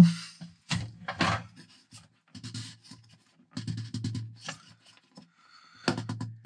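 Union nut of a Truma heater exhaust chimney being turned up its thread by hand, making short, irregular rubbing and scraping sounds in several separate bursts.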